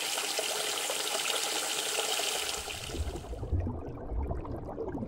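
Rushing, splashing water sound effect for about three seconds, which then gives way to a low underwater rumble.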